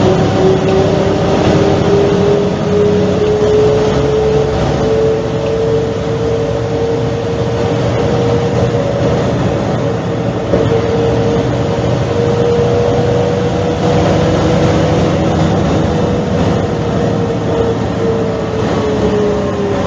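Mercedes-Benz O345 city bus's diesel running under way, with a steady rumble and a clear whine that rises slowly in pitch over the first half, holds, then falls away near the end.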